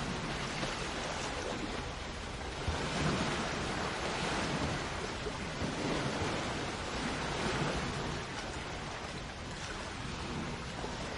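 Sea waves washing onto a shore: a continuous rushing wash that swells and eases slowly, a little louder about three seconds in and again around seven to eight seconds.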